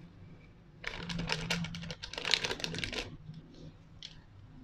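Small packet of curry powder crinkling and rattling as it is shaken and tapped empty over a blender jug. There are about two seconds of rapid crackly rustling, starting about a second in.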